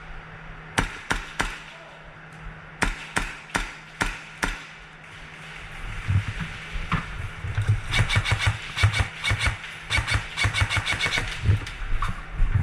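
Airsoft guns firing: a few single shots in the first seconds, then rapid strings of shots from about eight to eleven seconds in, over low thuds.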